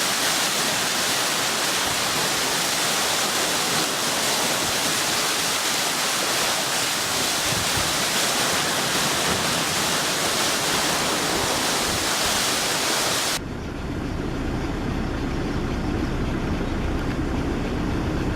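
Tarumi Falls' water pouring down in a steady, loud rush. About thirteen seconds in, the rush cuts off abruptly and a quieter, lower sound with steady low tones takes over, swelling toward the end.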